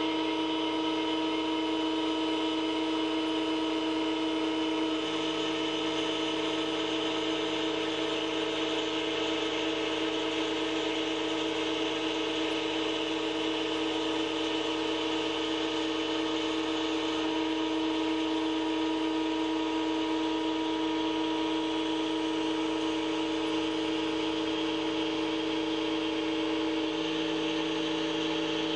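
Roland MDX-540 milling machine's spindle running steadily as its end mill cuts the outline of a copper-clad printed circuit board. The hum holds several steady tones, and its pitch mix shifts slightly about five seconds in and again near the end.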